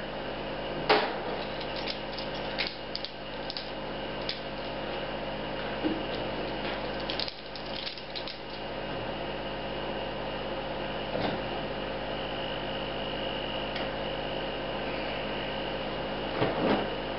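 Scattered clicks, knocks and rubbing of a wooden framing piece and a bar clamp being handled and set in place, most of them in the first half, over a steady background hum.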